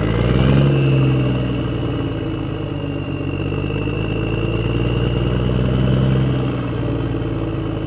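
Toy tractor running with a steady, engine-like drone and a thin high whine above it, rising slightly in pitch over the first second and then holding even.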